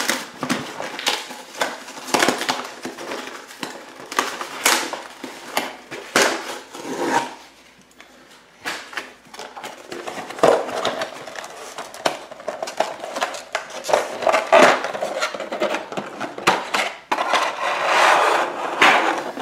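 A partwork pack being opened by hand: a busy run of crackles, rips and clicks from cardboard and a clear plastic blister tray, with a quieter spell about eight seconds in.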